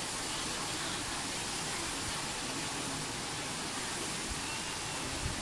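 Steady rushing of water, an even noise with no change in level.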